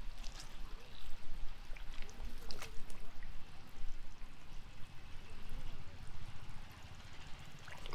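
Muddy pond water sloshing and splashing irregularly as it is stirred, with scattered small clicks and knocks.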